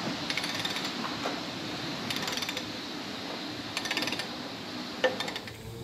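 Hand tool chipping and scraping caked manure in the scraper channel, in short bursts of rapid scraping and clicking, with one sharp knock about five seconds in.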